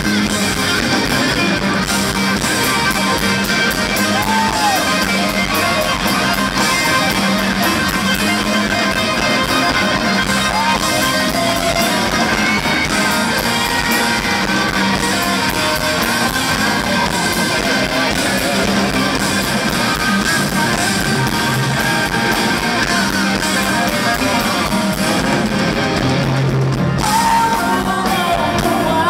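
Live rock band playing at full volume, with two electric guitars over a drum kit; a woman's singing voice comes in near the end.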